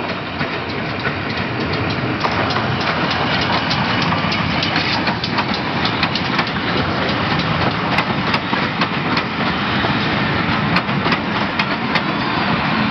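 Passenger coaches behind a GWR 0-6-0PT pannier tank rolling past close by, the engine drifting with steam shut off. A steady rolling rumble that builds over the first couple of seconds, with the wheels clicking irregularly over the rail joints.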